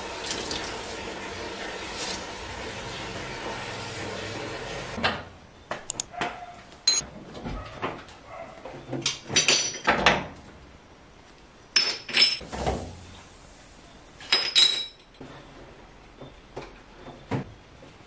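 Tap water running into a stainless-steel kitchen sink, which cuts off about five seconds in. Then come irregular knocks, clatters and rubbing as a stainless-steel gas hob is wiped down with a cloth and scouring pad.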